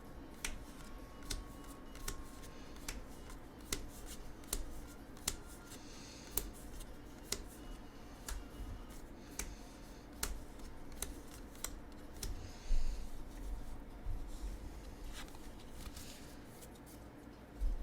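Magic: The Gathering cards being handled and sorted on a table: sharp clicks and snaps at irregular intervals as cards are set down and tapped together, with a few short sliding rustles.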